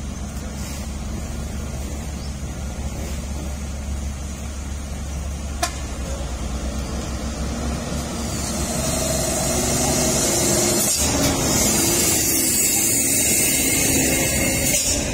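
Heavy diesel engines running steadily. About halfway through, a Hino truck drives past close by and the sound grows louder, with a strong hiss, as traffic passes.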